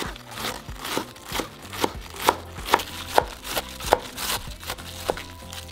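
Chef's knife chopping cabbage finely on a wooden cutting board: a steady rhythm of sharp knife strikes, about two a second.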